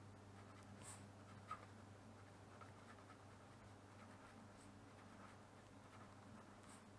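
Faint scratching of a pen writing on paper, with a short click about a second and a half in, over a low steady hum.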